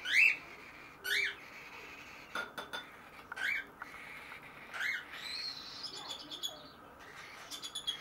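Baby cockatiels squawking: four loud rising calls a second or more apart, the first the loudest, then a higher, thinner call and a few light clicks near the end. These are the begging calls that hand-fed cockatiel chicks make at feeding time.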